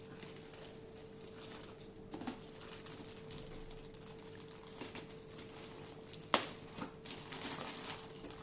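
Handling noises as the robot vacuum and its packaging are unwrapped: scattered light clicks and rustles, with one sharp click about six seconds in. A faint steady hum runs underneath.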